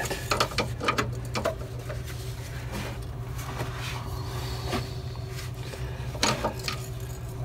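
Scattered metallic clicks and taps of a hand wrench on the air-line fittings and mounting nuts, most of them in the first second or two and a few more later, over a steady low hum.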